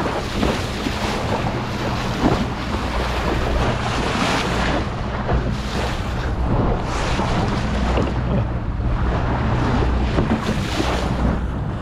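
A panga's outboard motor running steadily with a low hum while under way, under gusts of wind on the microphone and water rushing and splashing past the hull.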